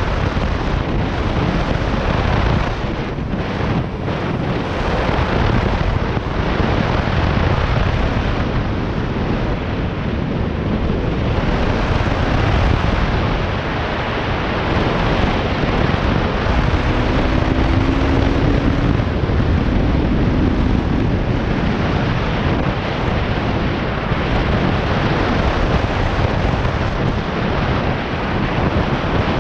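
Bajaj Pulsar RS200's single-cylinder engine and exhaust running while the motorcycle is ridden, with heavy wind buffeting on the microphone.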